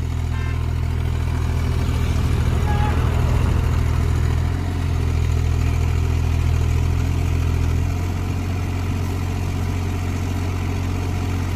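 A Kubota U30 mini excavator's diesel engine runs steadily under working load. It grows louder for several seconds in the middle with a brief dip, then settles back lower near the end.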